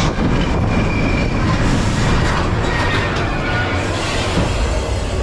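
Expedition Everest's steel roller coaster train running along its track: a steady rumble of wheels on rail with a faint wheel squeal.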